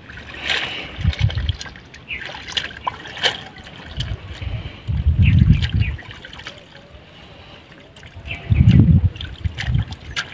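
Pond water splashing and trickling as water lily stems are pulled up and handled by people wading in the water, with three low rumbles, the loudest about five and nine seconds in.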